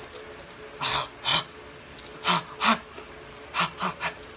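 A man huffing sharp breaths in and out through an open mouth to cool a too-hot mouthful of street food: about seven quick puffs, mostly in pairs.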